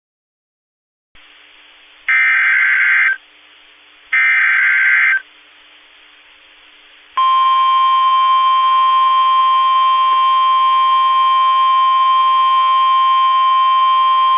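Emergency Alert System signal heralding a new severe thunderstorm warning on NOAA Weather Radio: two harsh one-second bursts of SAME digital header data about a second apart. About seven seconds in, the loud, steady 1050 Hz warning alarm tone begins.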